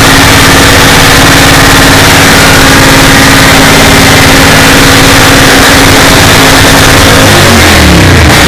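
Motorcycle engine held at steady high revs during a burnout, spinning the rear tyre. Near the end the revs fall away.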